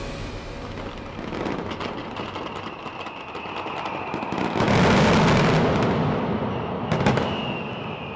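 Fireworks going off: a steady crackle of small bursts that swells about halfway through into a loud, dense volley of bangs and crackling. There is a sharp crack near the end, and a thin high whistle comes and goes over it.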